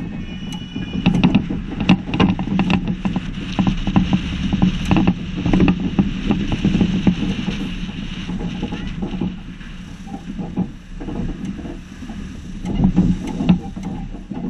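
Fire engine driving, heard from its roof: a steady low rumble of engine and wind on the microphone, broken by frequent sharp rattles and knocks, heaviest in the first half and again near the end.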